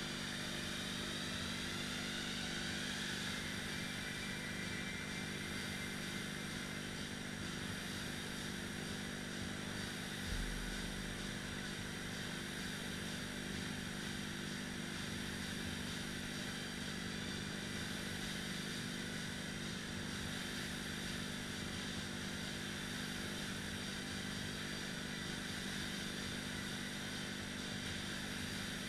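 Air-resistance rowing machine flywheels spinning under continuous rowing, a steady whir, with a single low thump about ten seconds in.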